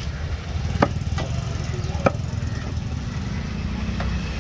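Steel cleaver chopping tuna on a wooden log chopping block: two sharp strikes about a second apart, with a fainter knock between them and another near the end. Under them runs a steady low rumble of road traffic.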